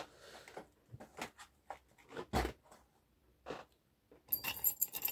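A euro cylinder lock and lockpicking tools being handled: scattered small clicks and knocks, then a busy run of light metallic clicking and rattling from about four seconds in.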